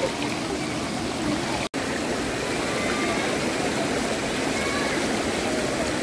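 Waterfall water rushing and splashing in a steady, even roar, with faint distant voices under it. The sound cuts out for an instant a little under two seconds in.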